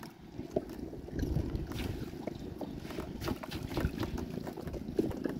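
Wind buffeting the microphone over water lapping against a small boat, with scattered light knocks.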